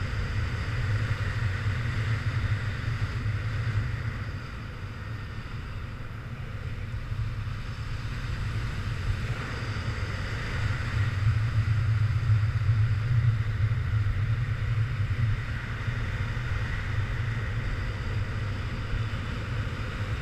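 Wind rushing over a camera microphone carried by a flying paraglider: a low, steady rumble that eases off a few seconds in and swells again in the second half.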